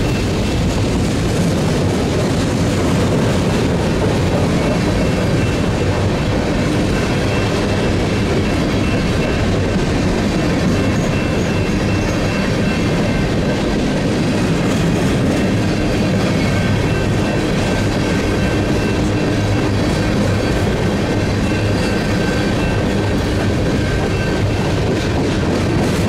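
BNSF covered hopper cars of a grain train rolling past close by: a steady rumble and clatter of steel wheels on the rails. A faint, steady high tone sits above it.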